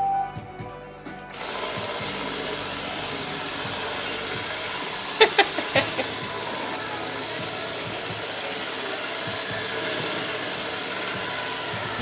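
A Roomba robot vacuum running with a steady whirring hiss, and a quick run of four or five knocks about five seconds in. Background music fades out just before the vacuum sound begins.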